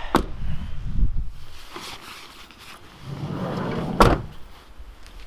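A van door being shut: a rushing swing ending in a single solid slam about four seconds in. Near the start there is a sharp click and a second or so of handling and rustling.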